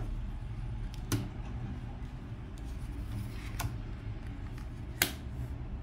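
A deck of tarot cards shuffled by hand, with sharp card clicks about a second in and three and a half seconds in, and a louder one near the end, over a low steady rumble.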